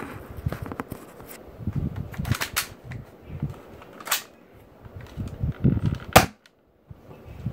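Modified Nerf Elite Fire Strike spring pistol, with a heavier spring and the air restriction removed, handled and primed with a sharp click, then fired near the end. The shot is the loudest sound: a hard snap as the dart strikes a cardboard box.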